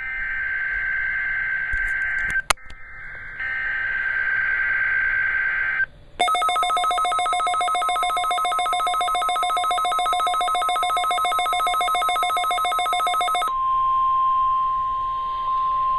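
NOAA Weather Radio required weekly test signals: two buzzy SAME digital header bursts with a click between them, then the steady warning alarm tone. For about seven seconds a rapid trilling electronic alarm sounds over the tone, and the plain tone carries on alone near the end.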